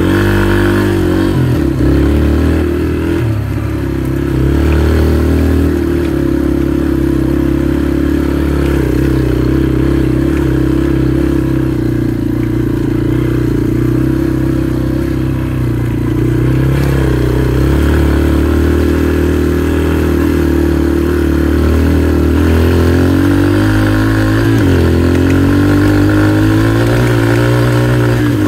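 Dirt bike engine running continuously under way, mostly at a steady speed, with the revs dropping and picking back up a few times as the throttle is eased and opened.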